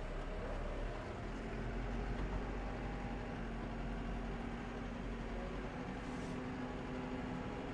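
New Holland T5.140 tractor engine running steadily, heard from inside the closed cab. About a second in, a steady hum sets in and slowly rises in pitch as the engine picks up.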